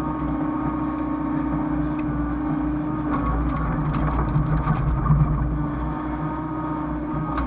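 Hyundai excavator's diesel engine running at a steady pitch, with a few short clatters a few seconds in as it works.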